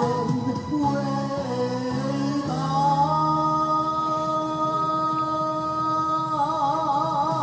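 Man singing into a microphone over musical accompaniment, played through a television's speaker. He holds one long note from about two and a half seconds in, and it turns into vibrato near the end.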